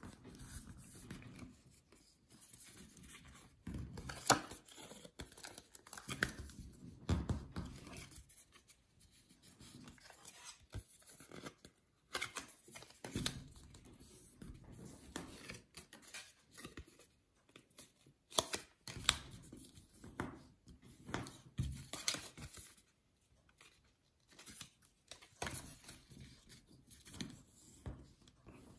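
A white paperboard jewelry box being folded and creased by hand: quiet rustling and scraping of the stiff card, with crisp clicks and snaps as the folds are pressed, coming in irregular spells with short pauses.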